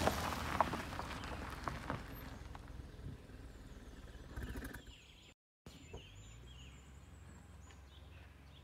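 Mazda 2 G115 Skyactiv with a Sebring aftermarket exhaust passing close by and driving away, its exhaust note fading over about five seconds. After a brief dropout, faint bird chirps sound over a low steady background.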